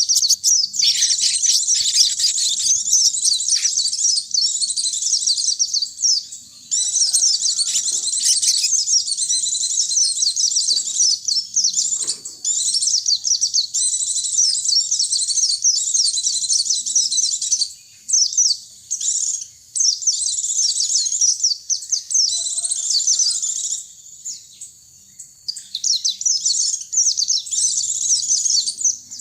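Pleci (white-eye) and sogon birds singing: a high, fast, continuous twittering of rapid chirps, broken by short pauses about two-thirds of the way through.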